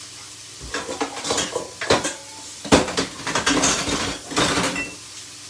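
Metal kitchenware clattering: a stainless steel bowl and other pots being handled, with a string of knocks, clinks and rattles for about four seconds, some ringing briefly.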